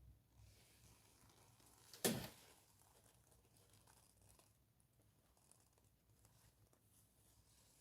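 Near silence, broken by a single sharp knock about two seconds in.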